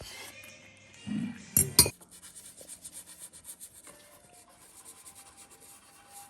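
Pen scratching rapidly across paper, writing in a notebook, after a dull knock and two sharp clicks early on.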